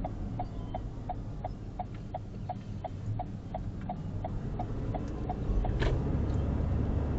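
Car turn-signal indicator ticking steadily, about three ticks a second, over low engine and road noise in the cabin. The ticking stops with a sharper click near the end, and the engine and road noise then grows louder.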